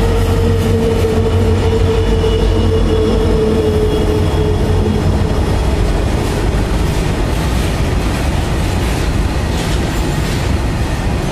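Twin WDG-4 diesel-electric locomotives, two-stroke EMD V16 engines, passing close by at speed with a steady whine that fades about four seconds in. Fully loaded BOBRN coal hopper wagons then roll past with a steady rumble, their wheels clicking over the rail joints.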